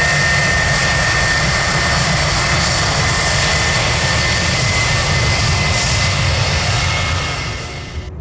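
Jet airliner engines running loud: a steady roar with a high whine over it, which cuts off abruptly near the end.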